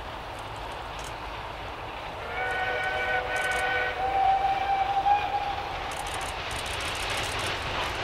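A distant steam locomotive's whistle, a chord of several tones, sounds about two seconds in with a brief break and fades after about three and a half seconds, over the steady noise of the approaching train.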